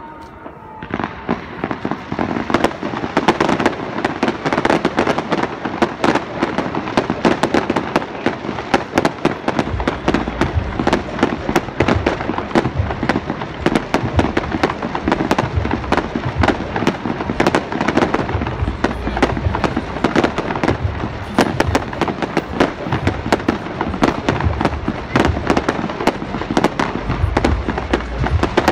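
Fireworks display: a dense, rapid crackle of many small bursts that starts about a second in and goes on without a break, with deep booms joining from about ten seconds in.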